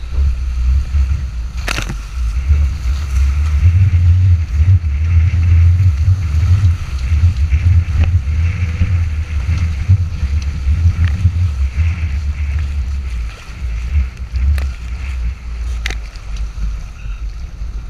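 Strong wind buffeting the microphone in a heavy low rumble, over the hiss and splash of water rushing past the hulls of a Nacra 14 catamaran sailing fast. A few sharp knocks, the loudest about two seconds in.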